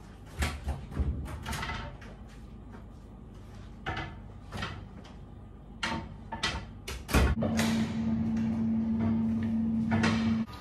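Clicks and knocks of a wooden room door and its latch being handled, several sharp clicks spread over the first seven seconds. About seven seconds in a steady low hum starts, which cuts off suddenly near the end.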